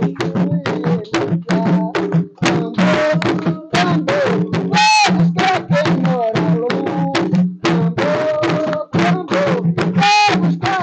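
Two wooden atabaque hand drums beaten in a fast, steady Umbanda rhythm, with voices singing over the drumming.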